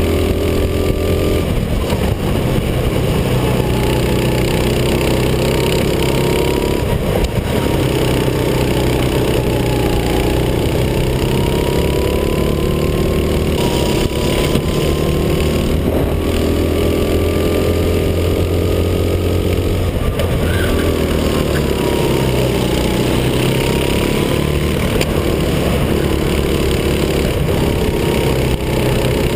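Racing kart engine heard from on board the kart at race pace, running continuously at high revs. Its pitch rises and falls gradually as the kart speeds up along the straights and slows for corners.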